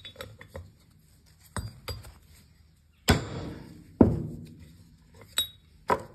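Sharp metallic knocks and clinks of steel seal-fitting tooling against a tractor's PTO nose casting: a few light taps, then two louder knocks about a second apart midway, then two lighter clinks near the end.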